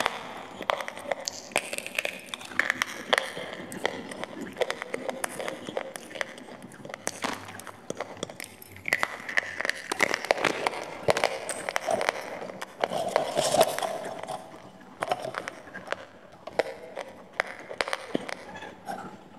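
Crisp crunching and chewing of baked clay rolls in the mouth: many sharp cracks with wet mouth sounds between them.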